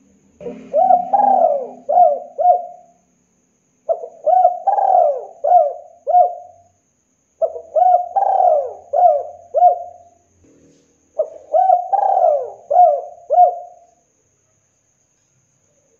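Spotted dove cooing: four phrases of several short coos each, about three and a half seconds apart.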